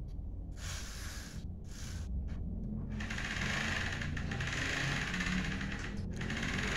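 A child's bicycle turned over by hand at the pedal: the chain and rear freewheel ratchet whirring and clicking. The sound comes in broken spells at first and runs on steadily from about three seconds in.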